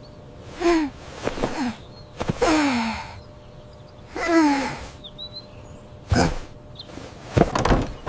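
A voice making three breathy sighs, each falling in pitch, followed by a few sharp knocks near the end.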